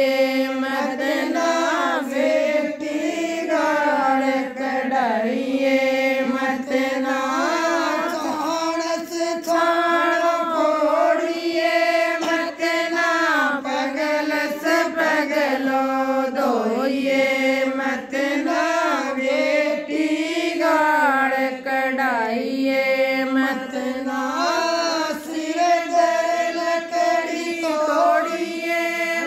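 A woman singing a Rajasthani jakhdi folk song solo, without instruments, in long held notes that bend and waver, pausing briefly for breath.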